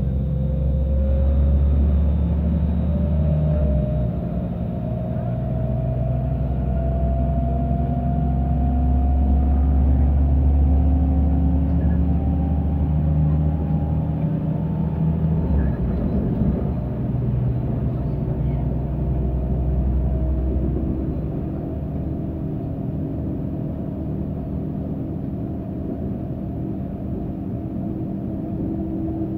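Inside the passenger cabin of an ÖBB class 5022 diesel multiple unit picking up speed: a steady low engine rumble under a whine that rises in pitch, drops back once near the start and climbs again. The low rumble eases off about two-thirds of the way through.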